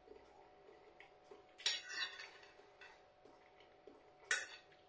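Metal fork scraping and clinking against a plate while scooping up rice: a few short, quiet scrapes, the loudest about two seconds in and another a little after four seconds.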